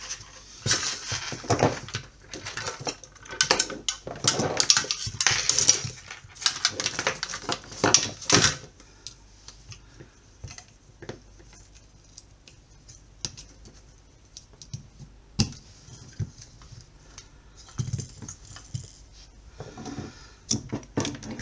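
Hands handling a plastic fan base, circuit boards and a mains cable on a silicone work mat: a dense run of clicks and rattles for the first eight seconds or so, then only scattered clicks, with another short burst of handling near the end.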